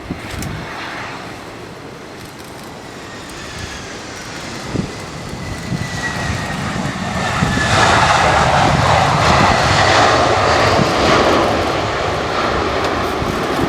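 Airbus A320 jet passing by, its engine noise swelling to a peak about eight seconds in, with a high whine falling in pitch as it goes past, then easing off. Wind buffets the microphone.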